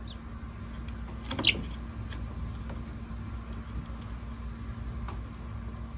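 Guinea pig nibbling greens held to its cage, with faint small crunching ticks. A chick peeps once, loudly, about a second and a half in, over a steady low hum.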